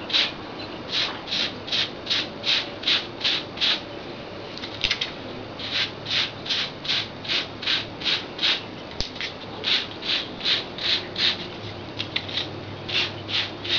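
A small Wavebuilder Edgetastic wave brush swept repeatedly through short hair at the crown, a bristly scratching stroke about three times a second. The strokes pause briefly twice.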